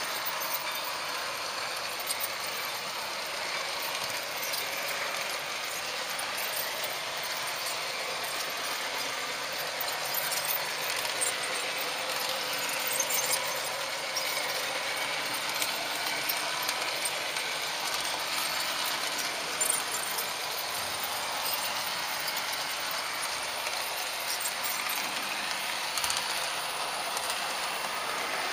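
HO-scale model train running along Märklin three-rail track: a steady mechanical whir of the small motor, gearing and wheels, with small clicks here and there as the wheels pass over the track.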